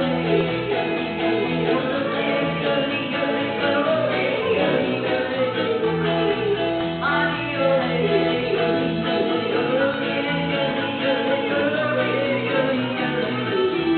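An elderly woman yodeling over a small live country band of banjo, acoustic guitar and electric guitar. Her voice wavers up and down and leaps sharply up in pitch about halfway through.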